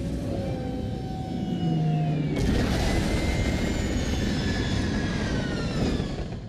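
Science-fiction starship sound effect of the Kom'rk-class fighter's engines: a low rumble, then a sudden rush of thruster noise about two and a half seconds in, with a whine falling in pitch as the ship comes down to land.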